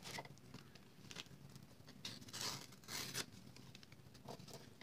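Faint rustling and sliding of cardstock and paper being handled, in a few short scattered strokes. The longest comes about two and a half seconds in.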